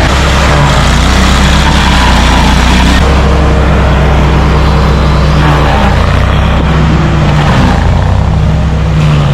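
A large engine running steadily and loudly, its pitch shifting slightly now and then.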